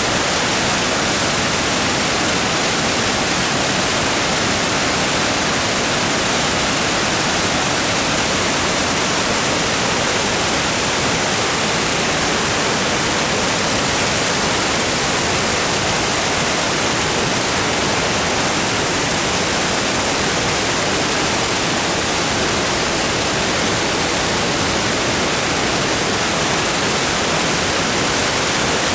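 Waterfall: falling water rushing steadily and loudly, an even hiss with no breaks.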